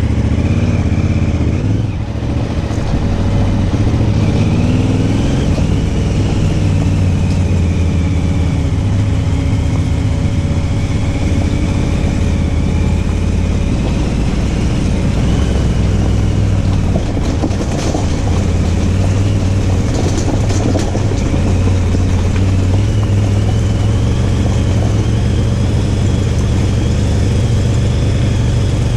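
Motorcycle engine running steadily throughout, its pitch rising and falling slightly a few times.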